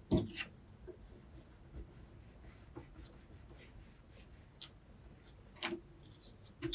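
A gift card and fingertips scraping and pressing along a crease in folded paper against a ruler edge, a faint rubbing with small ticks. A sharp knock just after the start and two shorter knocks near the end come from the tools being handled on the table.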